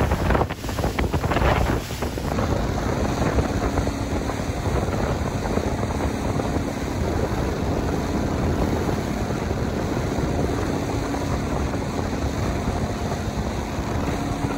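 Wind buffeting the microphone aboard a motorboat running at cruising speed, over the steady drone of its engine and the rush of water past the hull. The wind comes in gusts for the first couple of seconds, then steadies.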